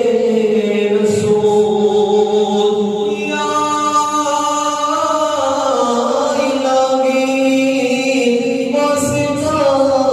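A naat, an Islamic devotional chant, sung by layered voices in long, slowly gliding held notes.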